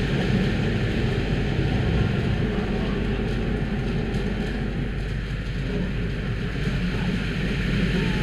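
Automatic car wash running: a steady rush of water spraying and sheeting over the car and the camera on it, with the wash equipment running.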